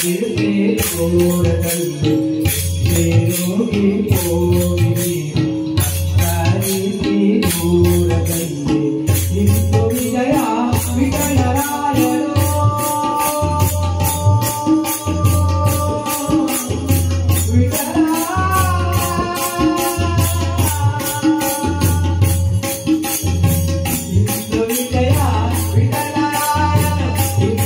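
Kunitha bhajane music: a steady drum beat with a regular jingling percussion on every beat. About ten seconds in, a melody of long held, wavering notes comes in over the rhythm.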